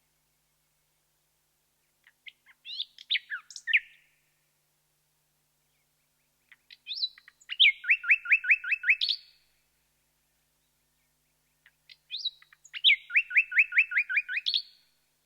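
Common nightingale singing in three separate phrases with pauses between them. The second and third phrases each end in a fast run of repeated, clear, downward-sweeping notes.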